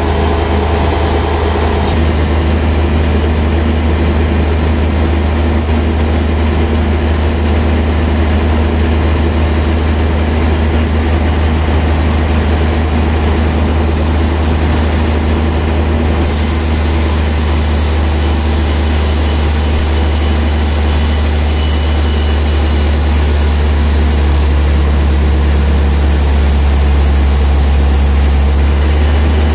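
Large log band saw running with a steady low hum. About halfway through a high hiss joins in and stops shortly before the end, as the blade cuts through a trembesi (rain tree) log.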